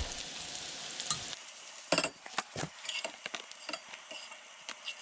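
Hen of the woods mushrooms sizzling in hot butter in a frying pan. About a second and a half in the sound changes, and a utensil starts clicking and scraping against the pan as they are stirred, with one sharp knock near two seconds.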